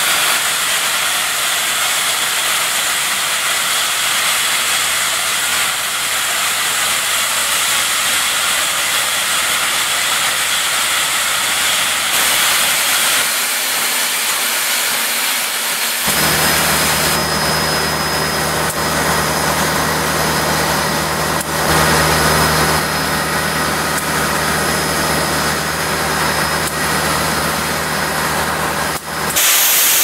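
Standing steam locomotive hissing steam steadily. About halfway through, the sound changes and a low steady hum runs under the hiss.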